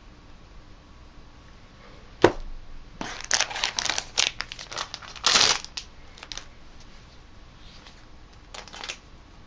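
Foil trading-card booster packs crinkling and rustling as a pack is pulled out of the display box. There is a sharp tap about two seconds in, then a run of crinkling that is loudest around five seconds in, and a short rustle near the end.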